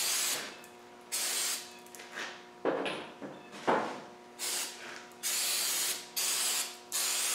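Aerosol cleaner spray can fired in a string of short hissing bursts, with a couple of duller rubbing sounds in between. The solvent is degreasing oily residue off the engine block's rear face before sealer goes on.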